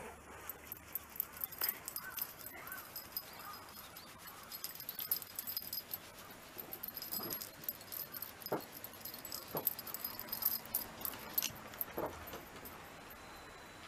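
Shiba Inu whimpering: short high whines and several quick falling squeaks, over a constant light jingle of metal tags and fittings on its collar.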